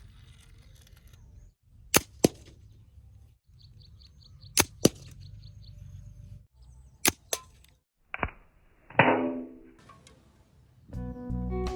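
Three pairs of sharp snaps, each pair about a third of a second apart, typical of a homemade slingshot being shot: the bands released, then the projectile striking. Birds chirp faintly between shots, and guitar music starts near the end.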